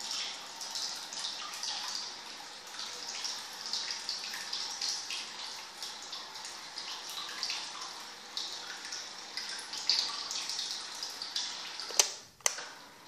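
Small propeller of a remote-controlled bottle raft churning and splashing bathtub water in an uneven, fluttering patter. Two sharp clicks come near the end.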